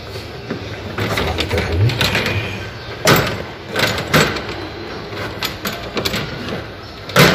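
Hand pushing and knocking a freezer's plastic inner cover panel into its clips: rubbing and scraping, then a few sharp plastic clicks and knocks, one more near the end.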